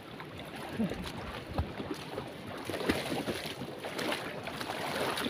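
Shallow seawater sloshing and splashing as people wade through it, with scattered small splashes from footsteps and wind on the microphone.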